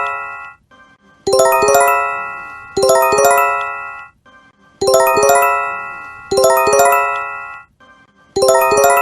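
Japanese emergency alert chime (J-Alert earthquake/tsunami warning): a bright phrase of quickly struck bell-like notes that rings out and fades, sounding twice about a second and a half apart, the pair repeating every three and a half seconds or so.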